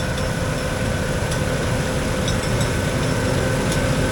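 John Deere combine harvester running steadily: a low engine rumble with a constant whine over it.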